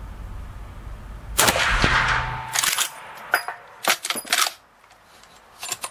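A single shot from a Pedersoli 1886 Boarbuster Mark II lever-action rifle in .444 Marlin about a second and a half in, echoing in a concrete indoor range. It is followed by a string of sharp metallic clacks as the lever is worked to eject the case and chamber the next round.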